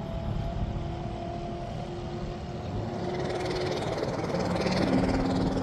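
Land speed race car's engine running hard as the car accelerates away down the mile, its pitch stepping up. A second, lower engine hum comes in and grows louder over the last second or so.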